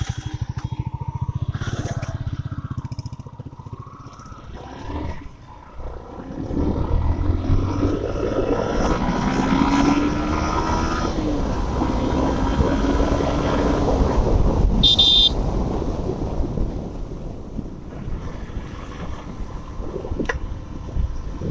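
Motorcycle engine running with a steady rapid low beat, then riding off: from about six seconds in, engine and road noise grow louder and the engine note rises and falls. A short high beep sounds about two-thirds of the way through.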